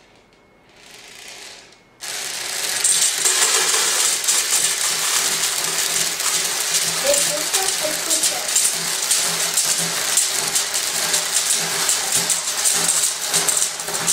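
A long string of beads uncoiling across a tabletop and pouring over the edge: a dense, continuous rattling clatter that starts suddenly about two seconds in, lasts about twelve seconds, and dies away as the last of the string goes over.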